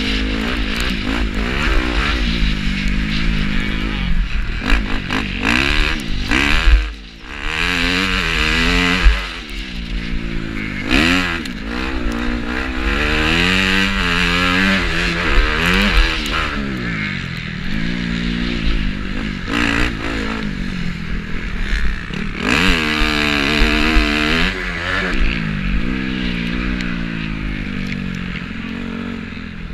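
Honda 250 motocross bike's engine revving up and down as the rider works through the throttle and gears around the track, with wind rumble on the bike-mounted microphone. The engine drops off briefly about seven seconds in, a sharp knock comes about nine seconds in, and the sound fades out near the end.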